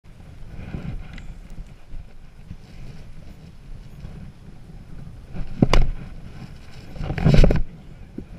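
Wind and gear rustle on a chest-mounted action camera, with one sharp smack a little before six seconds in, like a pitch popping into a catcher's mitt, and a louder, longer rustling thud about a second and a half later.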